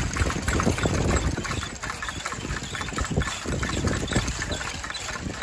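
Wooden whirligigs turning in the wind, their propellers and linkages clacking and knocking irregularly, with wind rumbling on the microphone.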